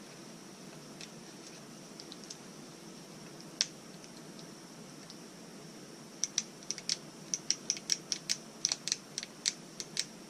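Small sharp clicks from handling the soldering gun's hardware: one louder click a few seconds in, then a quick irregular run of clicks, roughly four a second, near the end, over a faint steady background noise.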